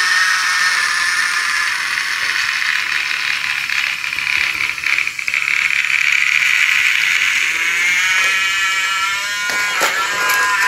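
Battery-powered toy train's small electric motor and gears whirring steadily, with the locomotive and its cars rattling along wooden track. There are a few sharp clicks near the end.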